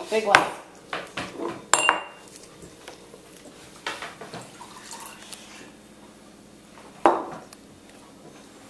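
Small glass jars clinking against each other and on a wooden tabletop as they are handled, with water poured from one jar into the other. A sharp clink about two seconds in rings briefly, and another comes near the end.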